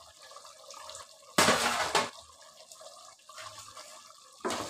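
Aluminium lid slid off a large pot of simmering mutton curry. There is a sudden clatter about a second and a half in, and faint bubbling and dripping liquid the rest of the time. Another loud noise starts near the end.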